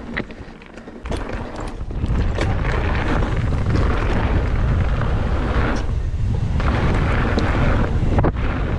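Wind buffeting the camera microphone of a mountain bike picking up speed downhill, a loud steady rumble and rush with tyre noise on the dirt trail. It swells in about a second in, after a few sharp ticks.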